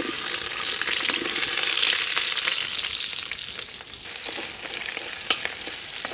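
Coarsely chopped onion going into hot vegetable oil in a cast-iron kazan, sizzling loudly at once and frying steadily, with a few light clicks. The sizzle eases a little about four seconds in.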